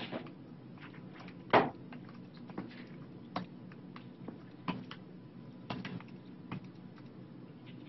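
Room tone with a steady low hum, broken by a handful of scattered clicks and light knocks. One louder knock comes about one and a half seconds in.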